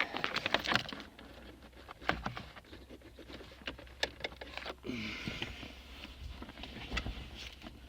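Hands working in the tight space under a car's dashboard: scattered clicks, taps and small knocks of plastic and metal, with a stretch of rustling about five seconds in.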